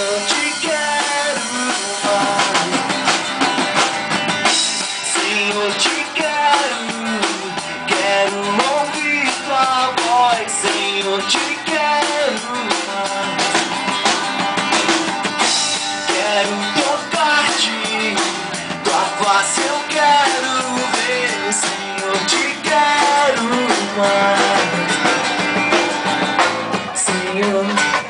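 A live band playing a song with drum kit and guitar.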